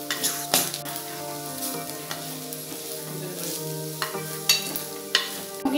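A wooden spatula stirring and scraping sliced onions and spice powder frying in a black pot, with sizzling and sharp knocks of the spatula against the pot.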